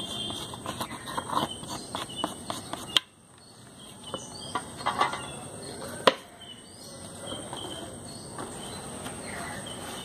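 Hands handling leaf sheath and tools on a workbench: a run of light clicks and knocks for the first few seconds, a sharp knock about three seconds in and another just after six seconds. Under them a steady high thin insect-like tone runs throughout, with a few faint bird-like chirps.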